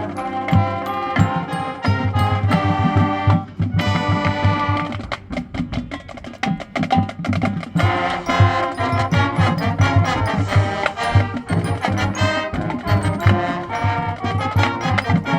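High school marching band playing its field show: brass and woodwinds over a drumline, with mallet percussion from the front ensemble. The full band drops to a thinner, quieter passage about four seconds in and comes back in full about eight seconds in.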